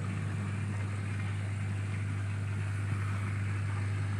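Aquarium pump humming steadily: a low electric hum with a faint hiss of air and water over it.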